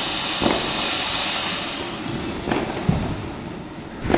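Ground fountain firework (flowerpot) spraying sparks with a steady hiss and a few short cracks, the hiss fading in the second half.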